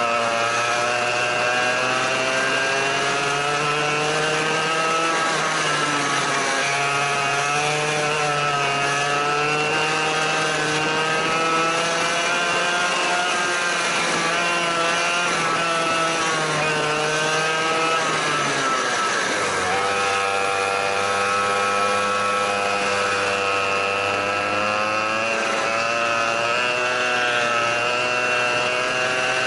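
A go-kart engine heard from on board at racing speed, its pitch rising and falling over and over as it accelerates out of corners and backs off into them. It drops sharply about two-thirds of the way through, then picks up again.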